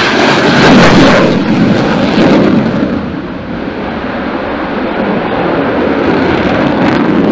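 Jet aircraft noise, a loud dense rushing sound of jet engines, strongest in the first couple of seconds, easing a little around three seconds in, then building again near the end.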